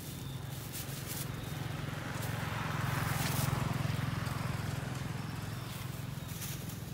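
Low engine hum of a passing motor vehicle, getting louder to a peak about three to four seconds in and then fading.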